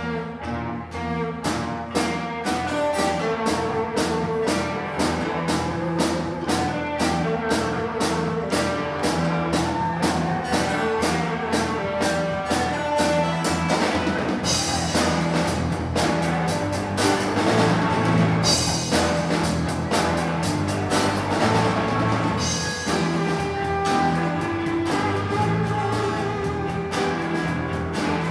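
Live rock band playing an instrumental passage: a drum kit keeping a steady beat of about three hits a second under electric guitars and bass.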